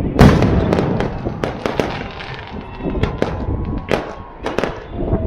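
A rapid, irregular run of sharp cracks and pops, several a second, with the loudest one just after the start.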